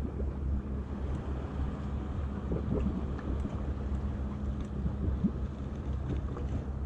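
Boat engine idling with a steady low hum, under wind rumbling on the microphone.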